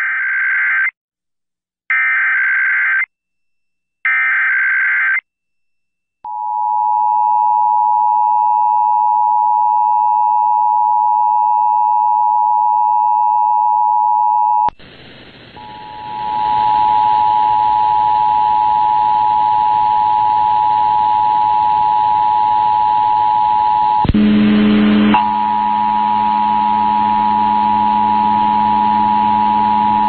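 Emergency Alert System test on FM radio: three short bursts of the SAME digital header, then the two-tone EAS attention signal held steady for about eight seconds. A hiss then comes in and the attention tone sounds again, with a low hum joining it near the end.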